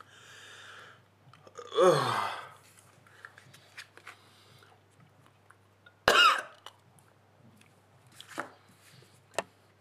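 A man coughing and retching on a mouthful of wakame seaweed salad that he can't stomach: two loud throaty heaves, about two and six seconds in, the first sliding down in pitch.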